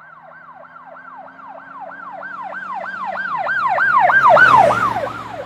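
Emergency vehicle siren in a fast yelp, about three sweeps a second, over a low engine hum. It grows louder to a peak about four seconds in, then begins to fade as the vehicle passes by.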